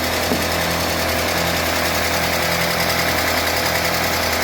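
Freshly rebuilt UAZ Patriot engine idling steadily on a cold start, being left to warm up.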